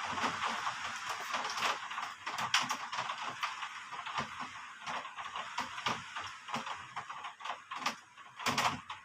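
Rain falling hard: a steady hiss laced with many irregular sharp taps of drops striking a surface, thinning after a couple of seconds to more separate, uneven taps.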